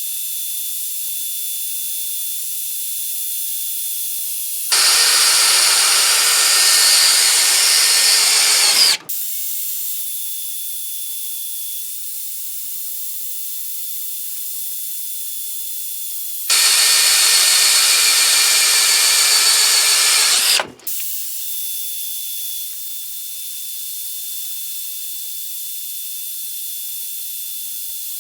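Makita brushless cordless drill boring a 5/16-inch bit into 1/8-inch steel angle iron, in two runs of about four seconds each that start and stop abruptly, about five seconds in and again after the middle. A steady high hiss lies under it throughout.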